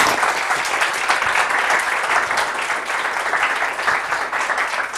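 Audience applauding: many people clapping steadily, thinning out near the end.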